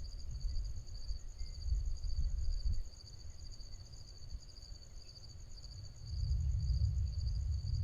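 Insects calling in a steady, pulsing high-pitched chorus over a low rumble that fades in the middle and swells again about six seconds in.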